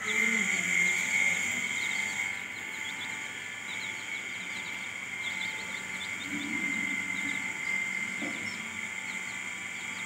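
Chicks peeping in many short, high calls, with an Aseel hen's low clucks near the start and again about two-thirds of the way through. Behind them is a steady high-pitched buzzing drone that starts abruptly.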